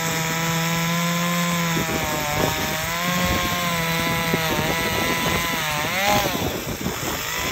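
Gas chainsaw running, just cold-started, and cutting into a dead tree branch; its engine pitch wavers with the load and dips and recovers about six seconds in.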